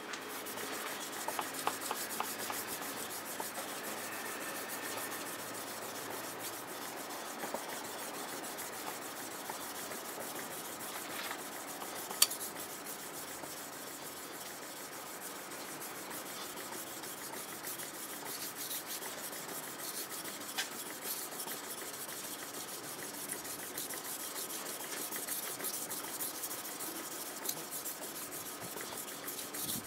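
Kitchen knife blade rubbed back and forth across a wet whetstone in continuous sharpening strokes, a steady gritty scraping of steel on stone. There is one sharp click about twelve seconds in.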